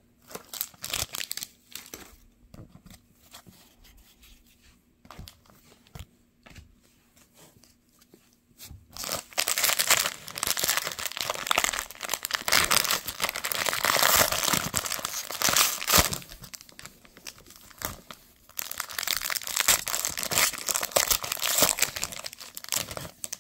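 Foil Panini Prizm basketball card pack crinkling as it is handled and torn open. First comes a scatter of light taps and rustles, then about nine seconds of dense crinkling, a short lull, and another stretch of crinkling near the end.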